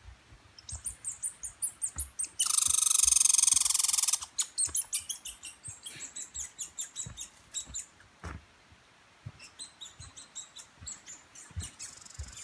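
A wild animal calling in the woods: a long run of short, sharp high chirps, broken about two seconds in by a loud, rapid rattling trill that lasts almost two seconds. Soft footsteps on the dirt trail thud underneath at walking pace.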